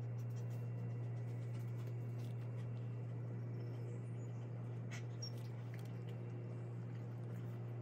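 A steady low hum with a faint hiss, broken by a few faint clicks partway through.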